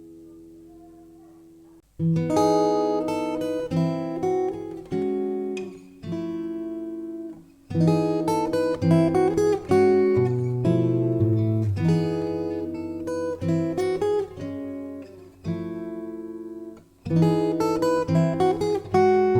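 Background music: an acoustic guitar plucking a melody, its notes ringing and dying away, with a few short pauses between phrases.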